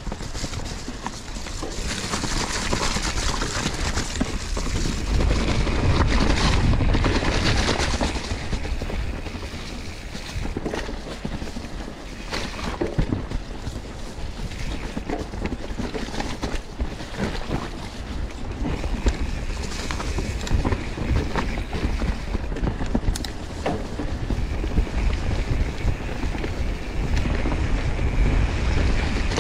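Mountain bike being ridden over a wet, muddy trail: wind buffeting the microphone over the rumble of the tyres, with frequent clicks and knocks as the bike rattles over roots and bumps.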